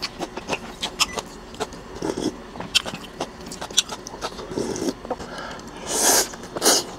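Close-miked eating sounds: wet chewing and lip smacks heard as many small clicks, then loud slurping of rice noodles about six seconds in.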